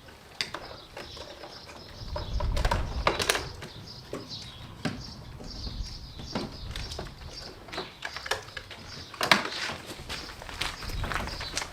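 Birds chirping steadily, with scattered sharp clicks and knocks; the loudest knocks come about three seconds in and again after nine seconds.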